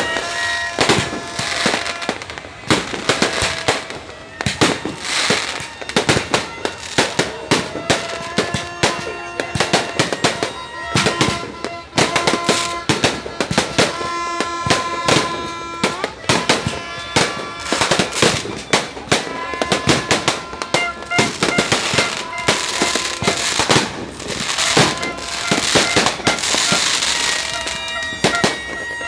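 Many fireworks going off in rapid succession, a constant run of sharp bangs and crackles. Steady held tones at several pitches sound through the bangs for much of the time.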